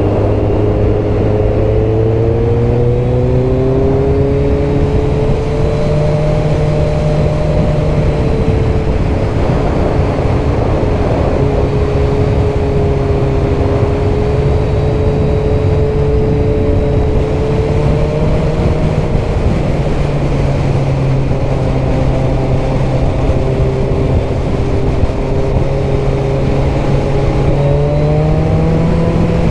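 Kawasaki GTR1400's 1352 cc inline-four engine heard from on board, running under light throttle through bends over steady wind and road noise. Its pitch climbs over the first few seconds, holds, drops about two-thirds of the way in and rises again near the end as the throttle is opened and eased.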